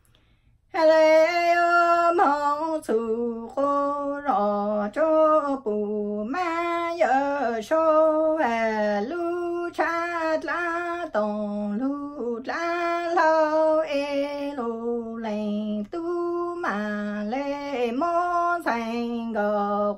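A woman singing Hmong lug txaj (sung poetry) alone and unaccompanied, in long held notes with slides and wavers between pitches. The singing begins just under a second in.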